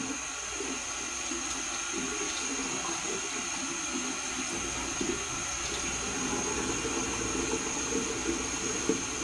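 Bathroom sink tap running steadily, with a few small splashes as hands scoop water onto a face.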